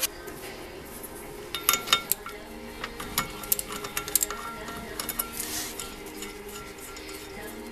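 Metal parts and tools clinking and knocking together in a quick irregular series of sharp, ringing clicks, over quiet background music.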